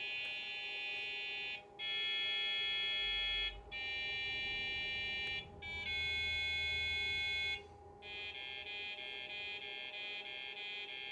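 IBM PS/2 Model 25-286's built-in PC speaker playing a buzzy beeped tune at start-up. It holds four long notes, then runs into quick repeated notes, about three a second, near the end.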